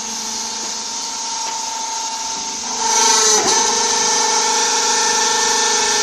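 Interlocking clay brick machine's hydraulic power unit running with a steady electric-motor hum, getting louder about three seconds in.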